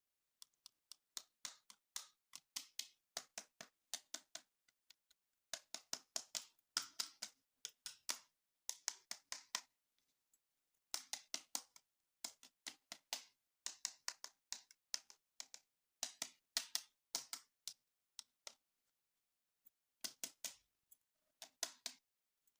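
Hands handling plastic toys and their packaging: runs of quick sharp clicks and taps, in clusters with short pauses.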